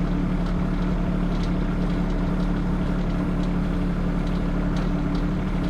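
Engine idling steadily, with a few faint light ticks over it.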